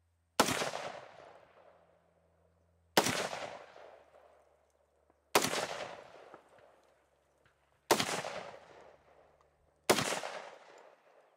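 FN SCAR 17S semi-automatic battle rifle in 7.62x51 NATO firing five single shots, about two and a half seconds apart. Each sharp report is followed by an echo that dies away over about a second.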